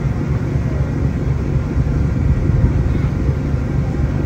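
Passenger ferry under way: a steady low rumble from its engines.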